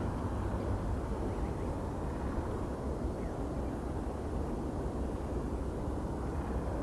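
Steady low outdoor rumble with no distinct events, the kind of background roar left by wind or distant traffic.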